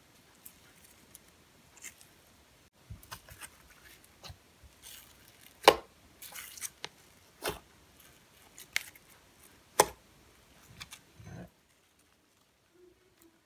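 Sticky chocolate-coloured slime being pulled, pressed and stretched by hand, giving scattered wet pops, clicks and tearing sounds, with two much sharper snaps about halfway and about ten seconds in. The sound stops a couple of seconds before the end.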